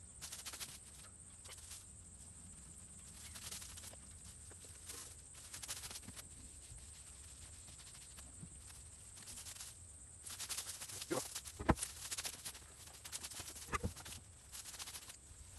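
Irregular knocks and taps on wood, with a louder cluster of sharp knocks about two-thirds of the way through, from handwork and footsteps on a wooden outhouse and its deck.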